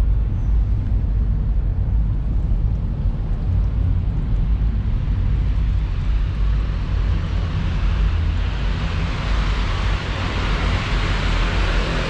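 Road traffic: a steady low rumble, with approaching vehicles growing louder over the last few seconds as a motorcycle and a double-decker bus come up.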